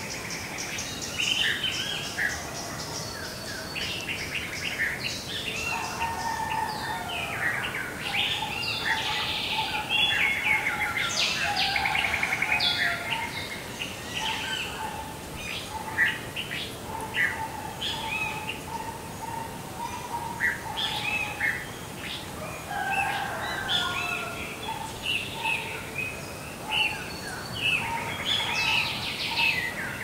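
Many birds chirping and singing over one another, a morning bird chorus of short calls and trills, over a faint steady background hiss.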